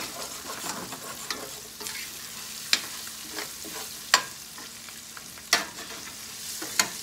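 Rice and vegetables sizzling in hot oil in a stainless steel sauté pan as they are stirred and scraped across the bottom with a utensil. A steady hiss of frying, with several sharp knocks of the utensil against the pan.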